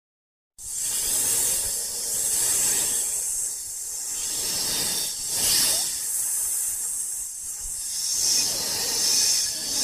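A hissing noise starts abruptly about half a second in and keeps going, strongest in the highs, swelling and easing several times, loudest about halfway through and again near the end.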